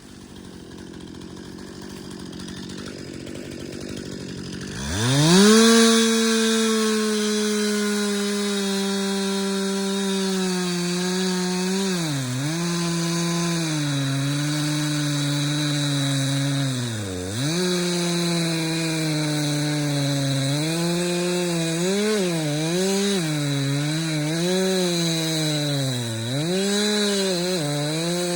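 Two-stroke chainsaw cutting hickory wood. After a quieter few seconds it revs up sharply to full throttle about five seconds in. It holds high revs, and its pitch sags several times as the chain loads up in the cut.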